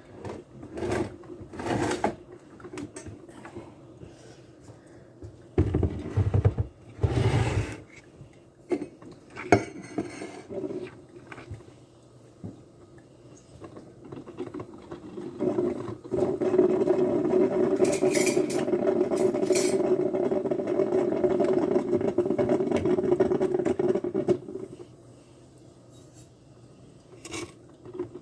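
Dishes and cutlery clinking and knocking while coffee is made, with two heavier knocks. Then a small kitchen appliance runs with a steady hum for about nine seconds and stops.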